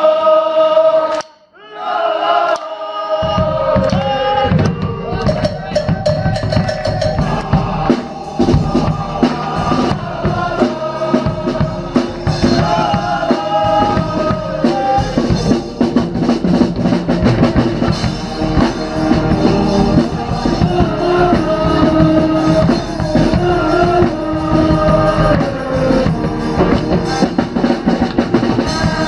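Dweilorkest (Dutch brass band) playing a party tune with brass over drums and bass drum. There is a short break about a second and a half in, then the band plays on.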